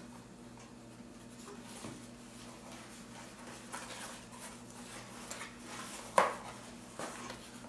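A small cardboard mailer box being handled and its flaps opened, with light scraping and rustling of cardboard and a few small clicks. A single sharp knock about six seconds in is the loudest sound.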